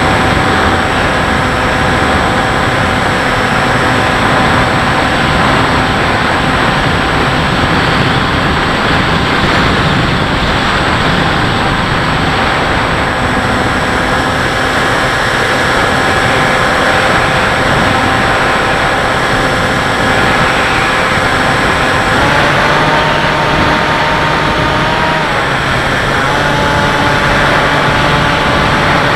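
Bixler RC plane's electric motor and propeller whining steadily over loud wind rush, heard from the onboard camera. The pitch of the whine shifts twice in the last third.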